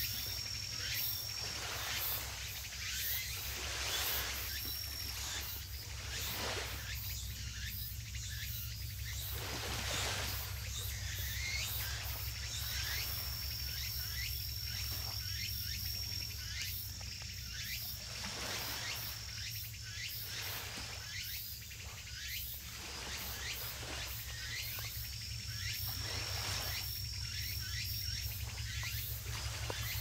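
Insects chirping outdoors, with a high, thin, steady trill that starts and stops several times, over a steady low hum.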